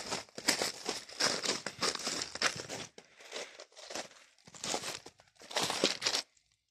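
Footsteps crunching on crushed-stone gravel at a walking pace, stopping shortly before the end.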